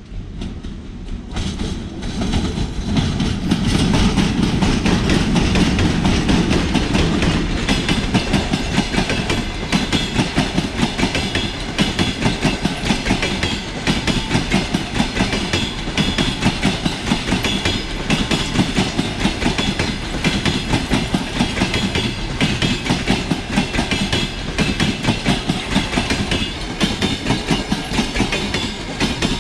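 A 2ES4K twin-section electric locomotive at the head of a passenger train comes up and passes close by, growing louder over the first few seconds. Its passenger coaches then roll past with a dense, steady clatter of wheels over the rail joints.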